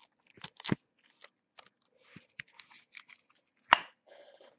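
Figurine packaging being handled and worked open by hand: scattered crackles and clicks, with two sharper knocks, one under a second in and one near the end.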